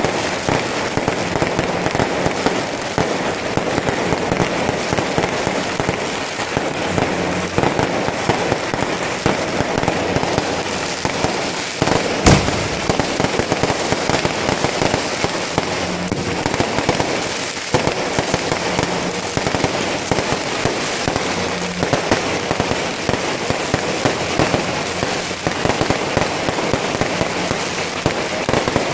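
Fireworks show with shells bursting overhead in rapid succession: a dense, continuous crackling and popping, with one especially loud sharp bang about twelve seconds in.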